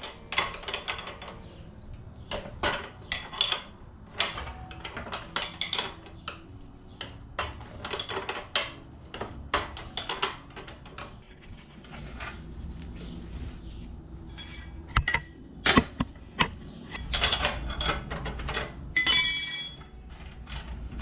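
Steel combination wrench clinking on a minibike's rear axle nut as the nut is worked loose: a run of light metallic clicks and knocks, with a louder ringing metal scrape near the end.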